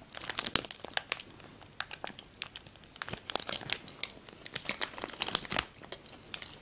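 Crackly plastic Choco-Pie snack-cake wrapper crinkling in the hands, in several short bursts.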